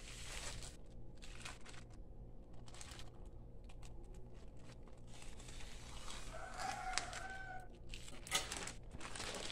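Plastic courier pouch crinkling as it is handled and cut open with scissors. A rooster crows once in the background about six seconds in.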